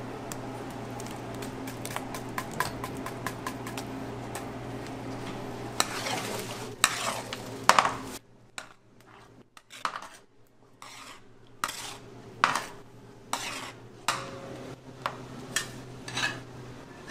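Metal utensils scraping and clinking against cooking pots as tteokbokki is stirred and scooped. A steady low hum runs under the first half and cuts off abruptly about eight seconds in.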